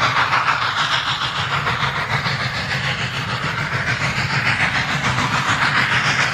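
Train running along the track, its wheels clicking over the rail joints in a quick, even rhythm over a steady rushing noise.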